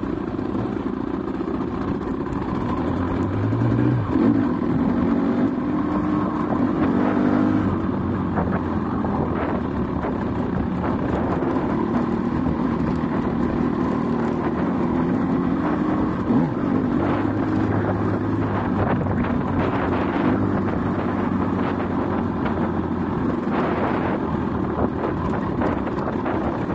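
Dirt bike engine heard from on board, running continuously under load on an uphill trail, its revs rising and falling several times with throttle and gear changes.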